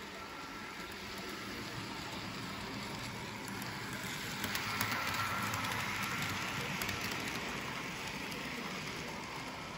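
Model electric train running on its track, a steady rushing whir with a few faint clicks that grows louder around the middle and then fades back down.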